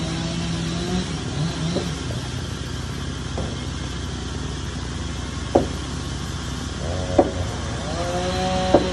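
Truck-mounted crane's engine running to drive the boom hydraulics, its hum fading after about a second and returning slightly higher near the end. Three sharp knocks come about a second and a half apart in the second half.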